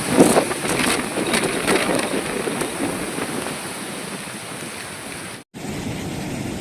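Typhoon wind noise battering the microphone, gusting hardest in the first two seconds. It cuts out for an instant about five and a half seconds in, then the same steady storm noise resumes.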